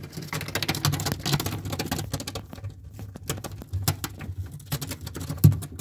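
Rabbits' feet scrabbling and pattering on the straw-strewn floor of a wooden hutch as a buck mounts a doe: a dense, uneven run of soft scratches and taps.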